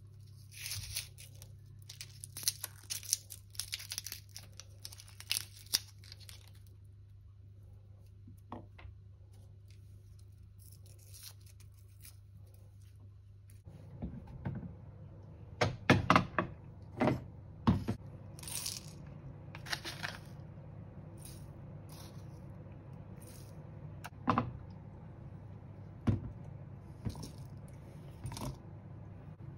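Irregular clicks, scrapes and rustling of kitchen handling, busy for the first several seconds and sparse in the middle. A low steady hum starts about halfway through, joined by louder clicks and scrapes.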